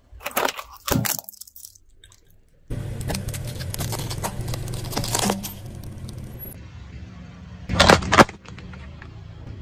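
A car tyre rolling over and crushing objects one after another. Two sharp plastic cracks come in the first second or so, then a steady low rumble of the rolling tyre with crackling and squashing for a few seconds. Near the end a filled snack packet bursts under the tyre with a loud pop and crunch.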